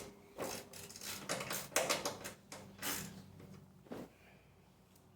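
Metal hand tools and fasteners clinking, knocking and scraping against the metal cover over a snowblower's drive components as it is worked off, in a quick irregular run of clicks, with a few separate knocks about three and four seconds in before it goes quieter.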